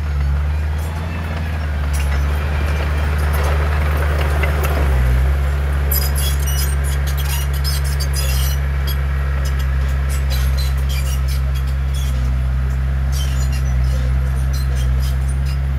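Heavy diesel engine of earthmoving machinery running steadily under load, with a swell of rushing noise a few seconds in and two spells of rapid metallic clinking and clanking.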